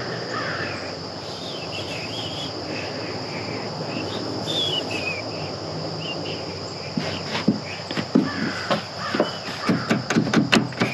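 Steady high-pitched insect drone with birds calling, then from about seven seconds in a quick, uneven run of sharp clicks and knocks, the loudest sounds here.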